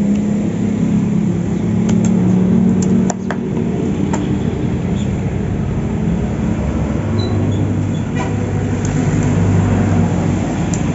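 A motor vehicle's engine running steadily, a low hum that shifts in tone a few times, with a few light, sharp clicks over it.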